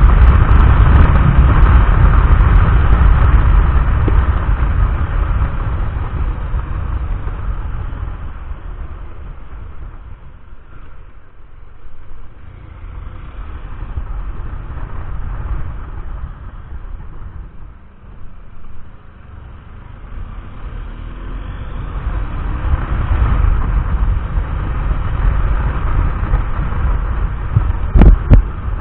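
Motorcycle riding on the road: engine and heavy wind noise buffeting the microphone, loud at first, easing off in the middle and building up again. A couple of sharp knocks near the end.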